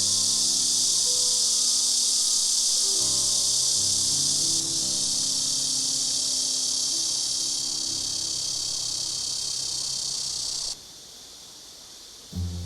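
A loud, steady, high-pitched chorus of summer insects that cuts off suddenly near the end, with soft background music underneath.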